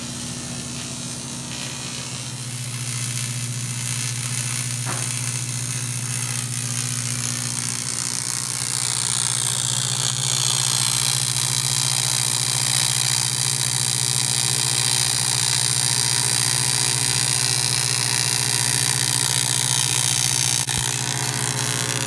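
Electric welding arc on an aluminium tube: a steady buzzing hum that gets louder a few seconds in, joined about nine seconds in by a bright high hiss that holds steady.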